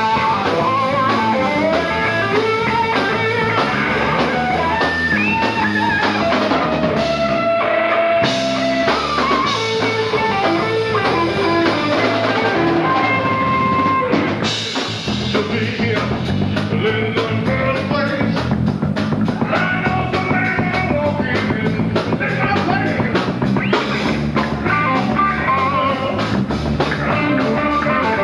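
Live rock band playing: an electric guitar takes the lead with long held, bending notes over drum kit and bass guitar, and the playing grows busier and more rhythmic about halfway through.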